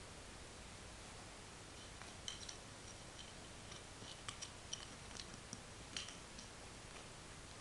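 Faint, irregular light clicks and ticks, about a dozen spread over five seconds and starting about two seconds in, as a cat paws and bites at a small brush held out to it.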